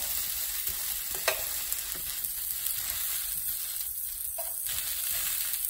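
Oil sizzling steadily on a hot griddle as tomatoes and bread pieces fry in it, with a sharp click about a second in and a few lighter taps from metal tongs turning them.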